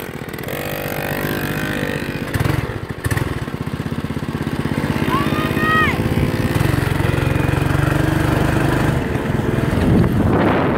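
Small dirt bike engine running and revving as the bike pulls away across grass, getting louder about two seconds in and rising and falling with the throttle.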